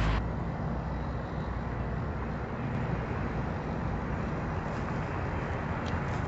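Steady low rumble of outdoor night ambience, like distant traffic, with a faint click near the end. A music cue cuts off just at the start.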